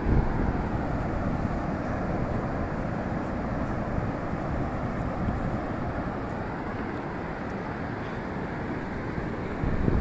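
Steady rushing noise of wind on the microphone mixed with surf washing on the beach, with no distinct events.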